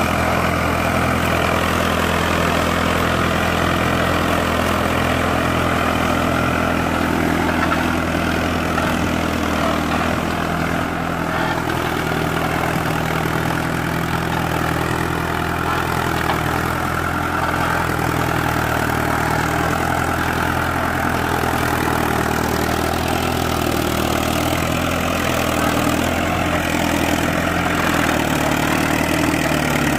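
Mahindra Arjun 555 tractor's diesel engine running steadily under load as it pulls a tined cultivator through the soil.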